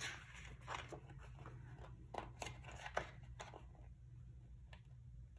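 Faint handling of a paper sticker sheet: a handful of light clicks and ticks as a small gold dot sticker is picked off the sheet with a craft tool.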